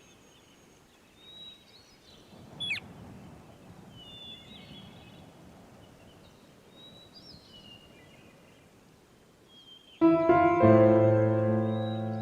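Small birds chirping with short, high whistled calls over a faint background hiss. About ten seconds in, piano music starts suddenly and becomes the loudest sound.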